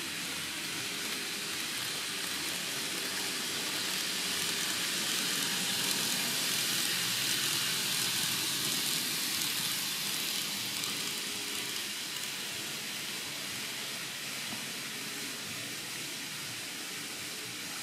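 N-gauge model container train, an EF64-1000 locomotive hauling container wagons, running on layout track: a steady high hiss of small wheels rolling on the rails, growing louder about six to eight seconds in and easing off toward the end.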